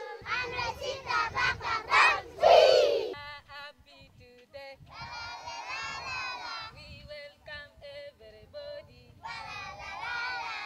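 A group of young children singing a song together, loudest in the first three seconds, then in short phrases with brief pauses between them.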